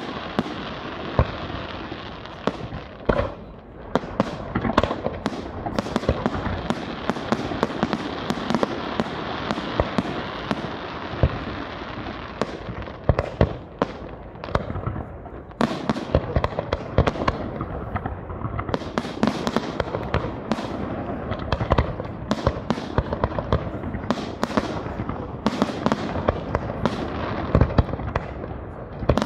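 Aerial firework shells bursting in a professional display: many sharp bangs in quick succession, with crackling stars filling the gaps between them.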